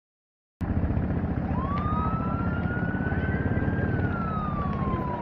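An emergency-vehicle siren wailing slowly, its pitch climbing and then sliding back down before starting to rise again, over a loud low rumble. The sound cuts in suddenly about half a second in, after dead silence.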